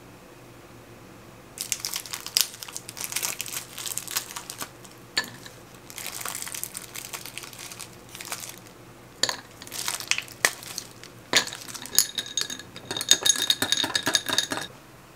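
Plastic ice-cube bag crinkling and crackling as ice cubes are squeezed out of it and knock into a glass of tea. Near the end the ice is stirred in the glass, clinking with a ringing tone.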